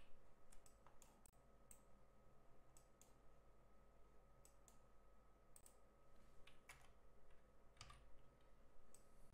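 Faint, irregular clicks of a computer mouse and keyboard keys as dimension values are clicked into and typed, over a faint steady electrical hum.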